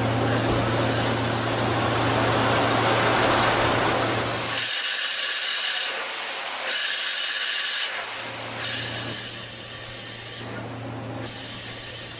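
CNC machine tool cutting. A steady hum with a rough grinding noise gives way, after about four and a half seconds, to a high-pitched whine that comes in repeated cutting passes about a second long with short quieter gaps between them.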